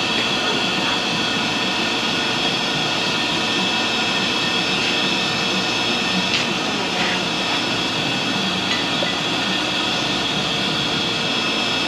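Steady rushing noise of a glass-bending burner flame used to heat and bend neon sign tubing, with faint high steady tones in it. A couple of faint light clicks come about halfway through.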